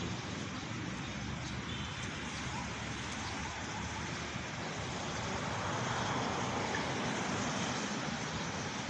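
Steady hum of road traffic, rising a little about two-thirds of the way through and easing again.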